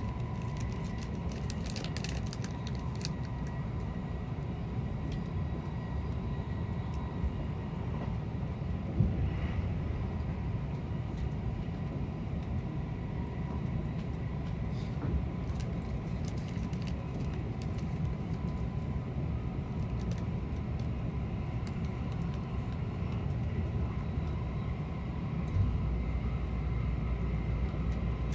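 Running noise of the Kuroshio limited express heard from inside a passenger car: a steady low rumble of wheels on rails with a faint steady whine and a few sharp clicks. About 25 seconds in, a heavier low rumble sets in.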